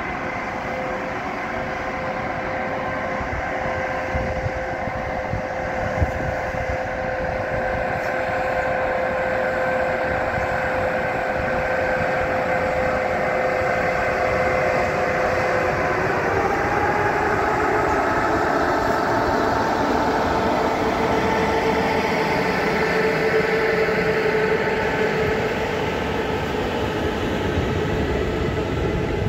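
EP2K electric locomotive departing with a passenger train and passing close by, its several steady tones shifting down in pitch about sixteen seconds in as it goes past. The coaches then roll by with a steady rumble of wheels on rail.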